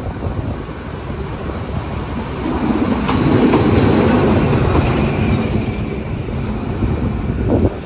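SRT Alsthom diesel-electric locomotive 4154 running on its own close past, its engine rumble swelling to its loudest a few seconds in as it goes by, then easing as it moves away. A few sharp wheel clicks over the rail joints as it passes.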